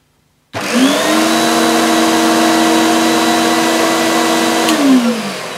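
Electrolux Power System Z1710 upright vacuum cleaner switched on about half a second in: its motor comes up to speed quickly and runs with a steady, low-pitched noise. Near the end a click, and the pitch falls as it is switched off and winds down. The owner finds it unusual sounding, as if it wasn't running at full speed.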